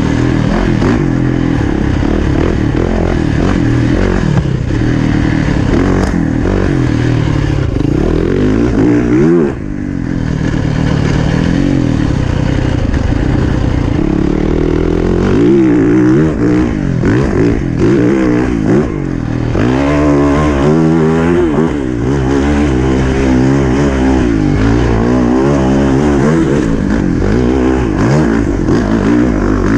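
The fuel-injected 450cc four-stroke single-cylinder engine of a 2020 Yamaha YZ450FX dirt bike being ridden. Its pitch rises and falls again and again as the throttle is opened and closed, with a short drop in level about nine and a half seconds in.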